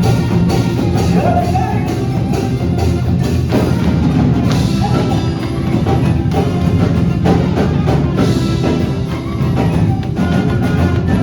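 Music with percussion: pitched instruments over a steady beat of knocks and drums.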